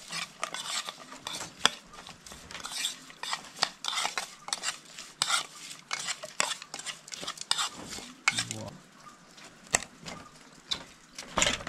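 A fork and spoon stirring and scraping in a bowl as raw shrimp salad is mixed, giving a continuous run of irregular clinks and scrapes against the bowl.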